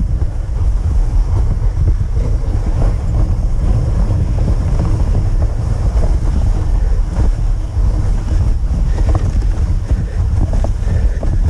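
Steady low wind rumble and buffeting on the microphone as the camera moves at speed behind a two-dog team on a snow trail.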